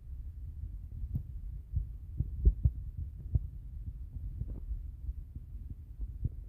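Footsteps and handling noise from a handheld camera being carried while walking: a low rumble with irregular soft thumps.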